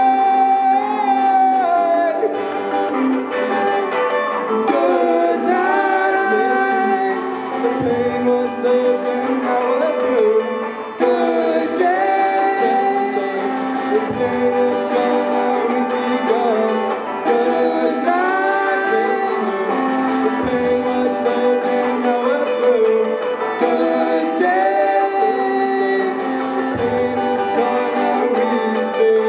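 A live rock band: two electric guitars playing with a male voice singing over them, the phrase repeating about every six seconds.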